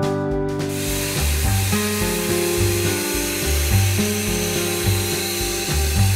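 Background music with a bass line that changes note about every half second; from about a second in, a steady hiss runs underneath it.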